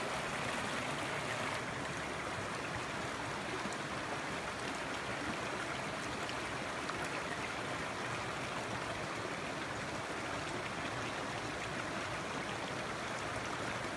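A small, shallow mountain creek running over rocks, with a steady, even rush of flowing water.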